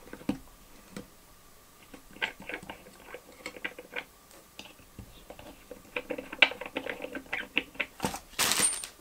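Light clicks and taps of hands handling small metal fittings and plugs on an acrylic CPU water block, quickening about six seconds in, with a brief rushing noise near the end.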